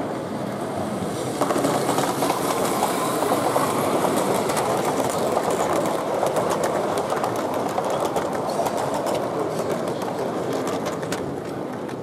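Large-scale model steam train running past close by on its track, with a rapid clicking of wheels over the rail joints as the coaches go by. It gets louder about a second and a half in and fades near the end as the train moves away.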